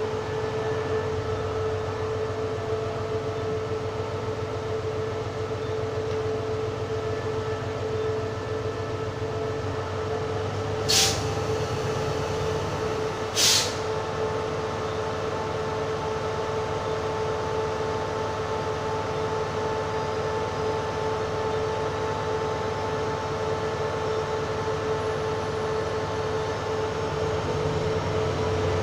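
SRT diesel-electric locomotive standing at the platform with its engine idling: a steady low hum and a steady whine. Near the middle, two short, sharp hisses come about two and a half seconds apart.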